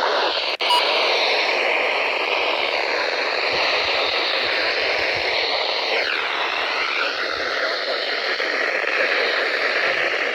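Static hissing from a radio receiver tuned to a weak or empty signal. The hiss cuts out for an instant just under a second in, and a sweeping, warbling whistle crosses it about six seconds in.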